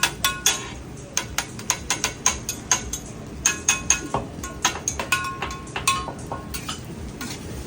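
Metal spatulas clanking and tapping on a hibachi flat-top griddle: quick irregular runs of sharp, ringing metal strikes.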